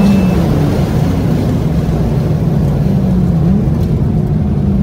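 Mazda RX-7 FD rotary engine heard from inside the cabin while the car is under way, played back at 1.5× speed so it sounds higher and busier, like a three-rotor 20B. It runs at a fairly steady part-throttle drone, its pitch dipping and rising slightly about three and a half seconds in.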